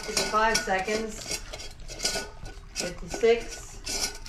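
A golden retriever eating from a stainless steel bowl on a tile floor: her muzzle and tongue knock and push the metal bowl in many quick clinks and rattles, and the bowl rings after each knock.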